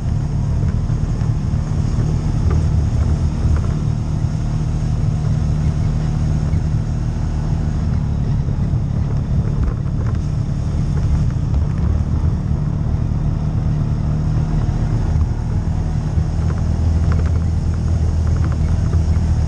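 CFMoto UForce side-by-side's engine running steadily while driving a dirt and gravel trail, with rumble from the tyres and chassis. A few light ticks about halfway and near the end.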